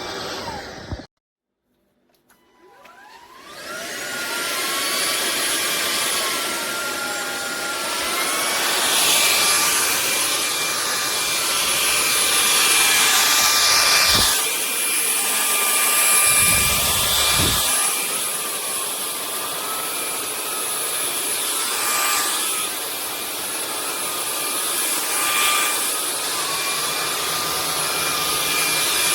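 Cordless stick vacuum starting up about three seconds in, its whine climbing, then running steadily: a high motor whine over a rush of air, swelling and dipping as it is worked. Before that, another sound cuts off about a second in and there is a short silence.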